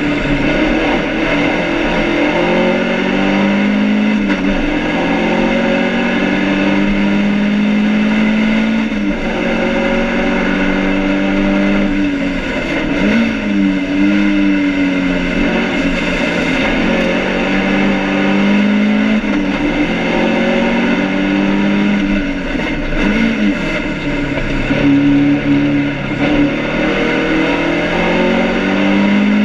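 BMW 2002 race car's four-cylinder engine heard from inside the cabin, its pitch climbing under acceleration and dropping sharply at each gear change, with deeper dips where it slows for corners. It is being short-shifted to spare an overheating engine.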